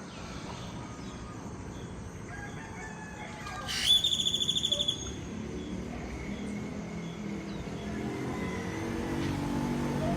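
Birds calling at dawn: scattered faint calls, then one loud call about four seconds in that sweeps up and breaks into a rapid high trill for about a second. A low rumble of traffic builds in the second half.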